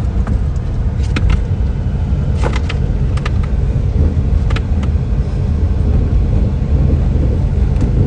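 Steady low rumble of a car's tyres and running gear heard from inside the cabin while driving over a rough, bumpy road, with a few light knocks or rattles in the first half.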